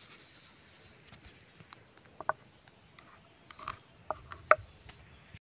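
Wooden pestle grinding sambal in a shallow mortar (cobek and ulekan): soft scraping with scattered knocks, the loudest two about two and four and a half seconds in.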